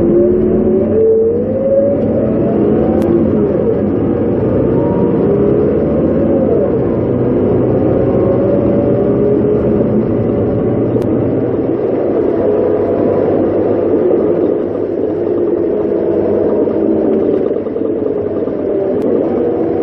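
Scania K230UB city bus's diesel engine and ZF automatic gearbox heard from inside the cabin under way, the engine note rising over the first two seconds or so and then running fairly steady, with a few smaller shifts in pitch as the gearbox changes gear.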